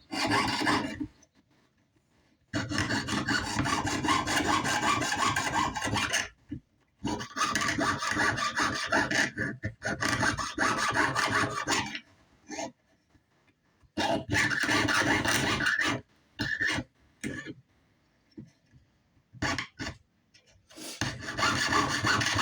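Jeweler's saw cutting feather shapes out of metal sheet: runs of rapid back-and-forth strokes lasting a few seconds each, broken by short pauses as the cut is repositioned.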